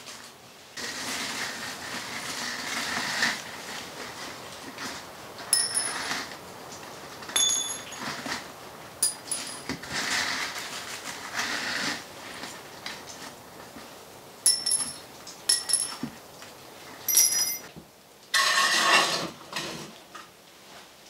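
Metal ash scoop scraping and tipping ash into a plastic bucket, with about seven short, ringing metal clinks and a louder rustle near the end.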